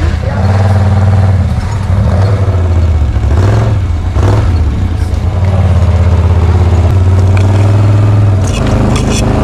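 An engine running close by, its pitch shifting a few times as the throttle changes, with a few light clicks near the end.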